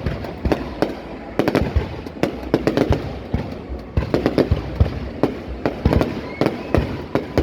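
Aerial fireworks display going off: a rapid, irregular run of loud bangs, several a second.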